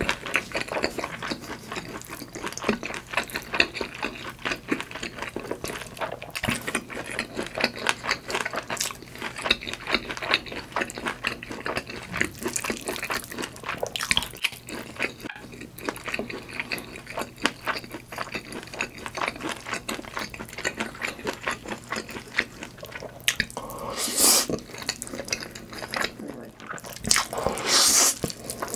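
Close-miked, wet mouth sounds of someone chewing food: a dense run of small sticky clicks and smacks, with two louder, noisier bursts of eating near the end.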